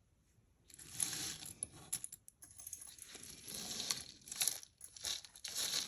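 Costume jewelry and its packaging being handled: irregular rustling with a few sharp clicks, starting just under a second in.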